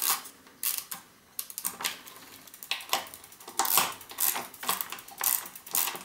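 Ratcheting torque wrench clicking in short runs of strokes as it tightens a crank arm's pinch bolts, still short of the set torque.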